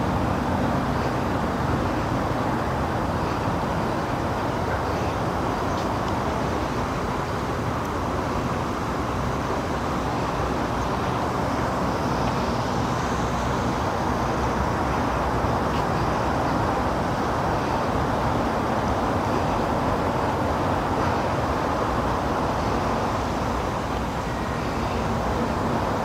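Steady outdoor background noise: an even wash of rumble and hiss that holds level throughout, with no distinct events.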